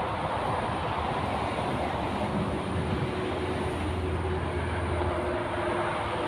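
Steady road-traffic rumble from the concrete overpass, with a deeper engine hum of a heavier vehicle swelling from about two to five seconds in.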